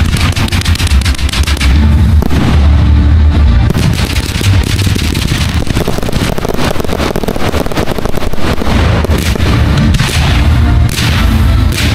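Fireworks going off in rapid succession, with shells bursting and ground fountains crackling, over music with a heavy bass.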